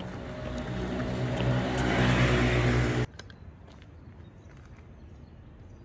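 A motor vehicle's engine, a steady low hum with rising noise that grows louder for about three seconds, then cuts off abruptly.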